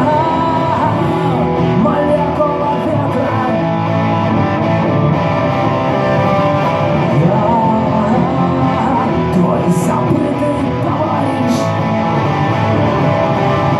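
Rock song in an instrumental passage between sung lines, carried by guitars with a wavering melodic lead line over a steady band backing.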